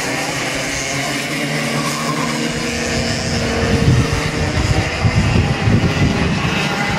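Several 125 cc two-stroke KF racing kart engines buzzing at high revs as a pack of karts races through the corners. A rough, uneven low rumble rises over the middle few seconds and is the loudest part.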